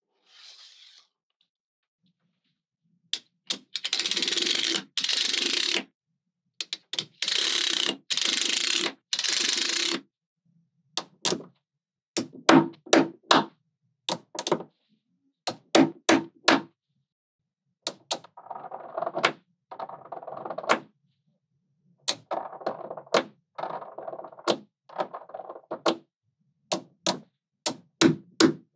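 Small neodymium magnetic balls clicking and snapping together as rows and strips of them are placed and pressed into a wall of balls. The clicks come singly and in quick clusters, with stretches of rattling. Two longer hissing rattles of about two seconds each come about three and seven seconds in.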